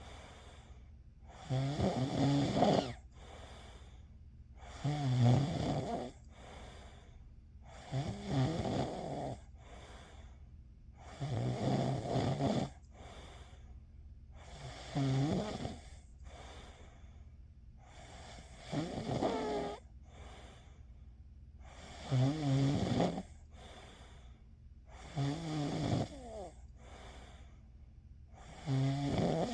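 A sleeper snoring in a steady rhythm: nine rough snores, one about every three seconds, each lasting about a second, with faint breaths in between.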